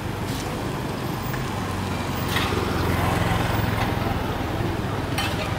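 A motor running steadily with a low hum, growing louder about two and a half seconds in.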